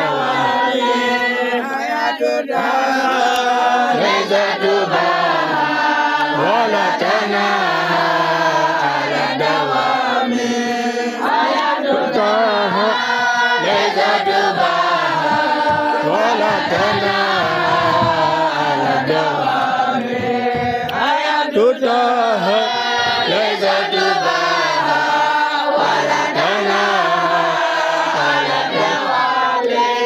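A large group of talibés (Quranic school boys) chanting together in unison, a continuous sung religious chant in phrases with brief breaths between them.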